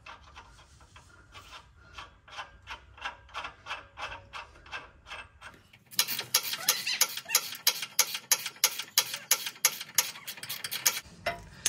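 Ratchet spanner clicking in an even run, about three to four clicks a second, tightening the nuts on a shock absorber's mounts. The clicking gets louder about halfway through and stops shortly before the nut is judged plenty tight.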